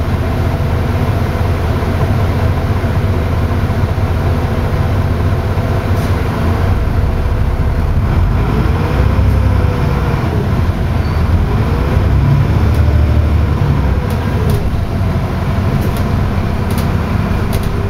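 Double-decker bus running, heard from inside the lower deck: a steady low drone of the engine and drivetrain, with a tone that rises and falls a few times in the middle. A few light clicks and rattles come near the end.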